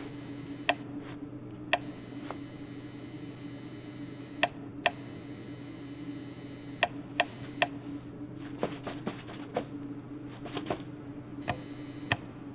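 Foley for a small mechanical character's movements: about fifteen sharp clicks and ticks, irregularly spaced, over a steady low electrical hum with a faint high hiss that cuts out a few times.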